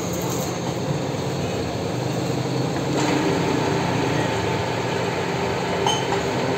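A machine running steadily with a continuous hum, a little louder from about three seconds in.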